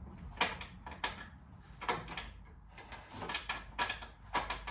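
Irregular sharp knocks and clicks, about seven of them, from a car door and its new hinge being shifted and lined up with the bolt holes.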